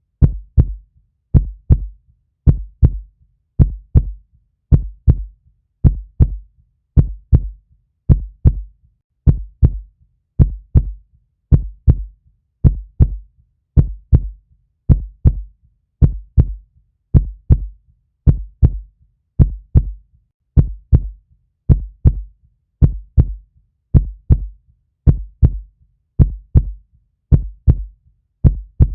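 Steady human heartbeat: low, muffled double thumps (lub-dub), each pair about a second apart, at an even resting pace.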